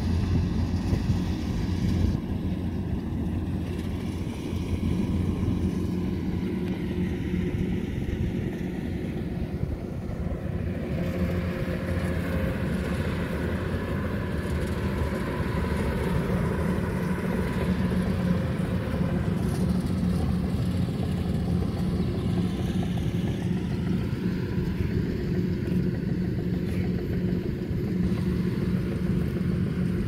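Rice combine harvester's diesel engine running steadily, a continuous low drone with no breaks or changes in speed.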